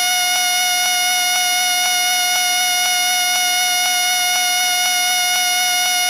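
A whistle blown continuously: one steady high tone with overtones, and a faint pulse about twice a second underneath.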